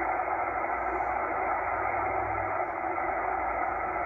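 Tecsun H-501X shortwave receiver in upper sideband giving a steady, muffled hiss of band noise with no treble while it is tuned across the 8 MHz band.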